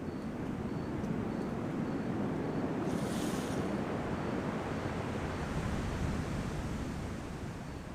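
Ocean surf washing in: a steady rush of wave noise that swells and slowly eases off near the end, with a brief hiss of breaking foam about three seconds in.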